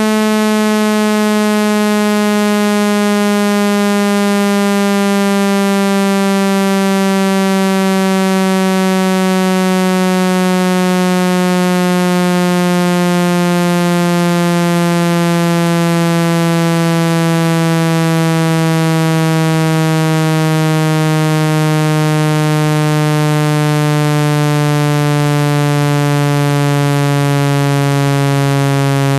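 Synthesized speaker-cleaning tone, a buzzy electronic note rich in overtones, sweeping slowly and steadily downward in pitch at constant loudness; it is played through a speaker to shake loose sand and dust trapped behind the grille.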